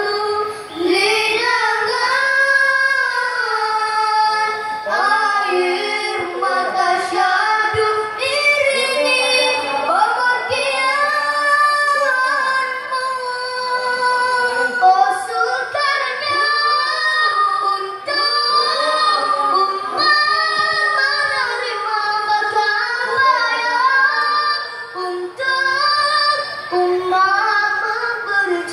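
A group of boys singing a nasyid together, a continuous melody with long held and gliding notes.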